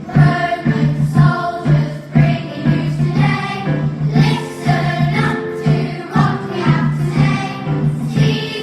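A children's choir singing with instrumental accompaniment, over a low bass note repeated in a steady pulse.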